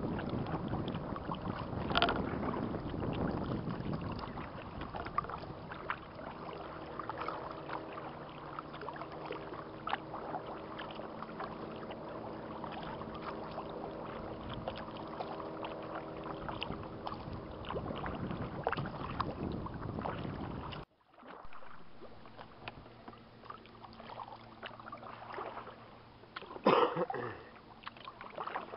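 Kayak paddling: paddle blades dipping and splashing, water lapping at the hull, and some wind on the microphone. A steady hum runs under it for several seconds in the middle, and a short loud clatter comes near the end.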